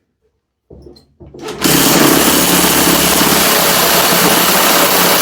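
Cordless impact wrench running on the flywheel nut of a vintage Briggs and Stratton engine, starting about a second and a half in and going on steadily and loudly.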